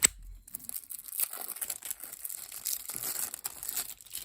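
Plastic trading-card pack wrapping crinkling and tearing as it is pulled open by hand, with a sharp snap at the start.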